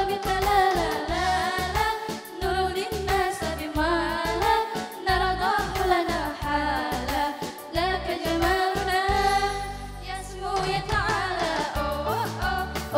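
Two girls singing a song into microphones over an amplified electronic keyboard accompaniment with a steady beat.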